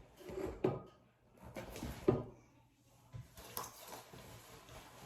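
Handling noises as makeup products and tools are picked up and set down, with two sharp knocks, one just under a second in and one about two seconds in, followed by softer rustling.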